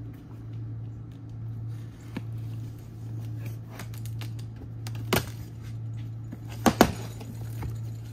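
A cardboard generator box being opened: tape and flaps pulled and folded back, with a sharp cardboard snap about five seconds in and two more close together near seven seconds, over a steady low hum.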